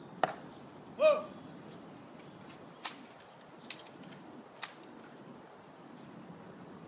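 Sharp clicks of a Tomb of the Unknown Soldier sentinel's footsteps as he marches his post, a few steps a little under a second apart. A short bird call sounds once about a second in.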